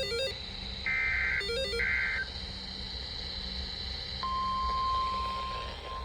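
Two short bursts of NOAA Weather Radio SAME digital header data, a harsh buzzing warble, about a second in and again about two seconds in. At about four seconds the steady 1050 Hz weather radio warning alarm tone starts and holds, signalling an emergency alert to follow.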